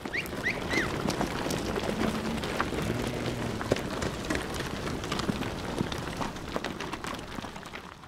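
Flock of sheep moving over stony ground: a dense patter of many hooves clicking and knocking on rocks and loose stones. A few short high calls sound near the start, and a low animal call about two seconds in.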